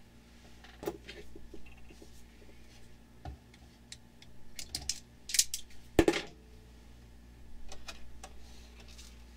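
Small clicks and rattles of wires and hand tools being handled over a metal amplifier chassis, with two louder sharp clacks a little past halfway as a self-adjusting wire stripper strips a wire.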